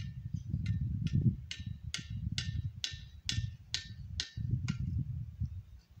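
A bird calling: a steady series of about a dozen short, sharp notes that fall in pitch, roughly two a second, louder in the middle and stopping shortly before the end. Under it runs a low, uneven rumble.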